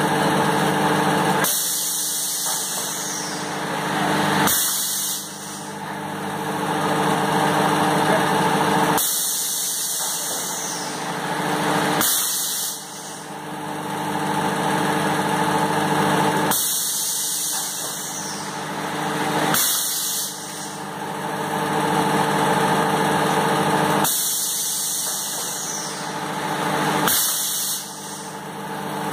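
Thermocol plate forming machine running: a steady motor hum with several level tones, and a hiss of air that comes twice in each cycle, about 3 seconds apart, repeating every 7 to 8 seconds as the machine goes through its forming cycle.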